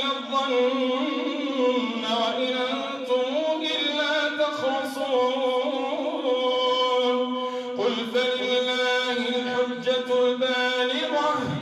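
An imam's single male voice chanting Quran recitation aloud into a microphone during prayer, in long melodic phrases with held notes, breaking briefly and starting a new phrase about eight seconds in.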